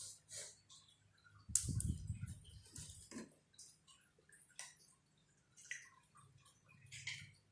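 Faint, scattered light clicks and taps of small bamboo and straw craft pieces being handled, with a louder knock about one and a half seconds in.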